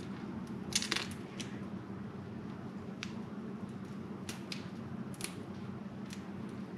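Raw shell-on shrimp being peeled by hand: faint crackles and snaps of shell pulling away, a cluster about a second in and a few single ones after, over a steady low hum.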